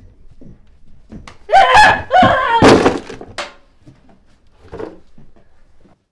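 A person yells loudly in two short bursts, then there is a heavy thud, as of a body landing after a jump. A fainter knock follows a couple of seconds later.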